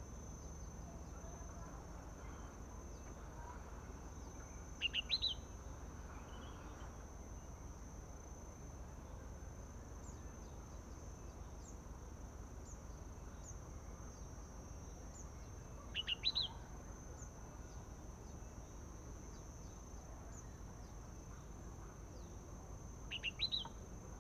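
Red-whiskered bulbul giving three short, quick chirping phrases about ten seconds apart, over a steady high-pitched insect drone.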